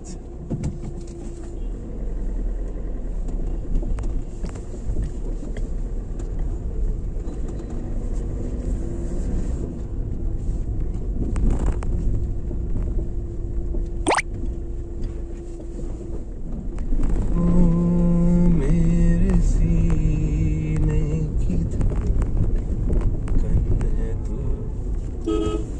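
Car running along the road, heard from inside the cabin: a steady low engine and road rumble. A brief, sharp rising whistle cuts through about halfway, and a few seconds later a louder held, pitched sound with several tones lasts for about four seconds.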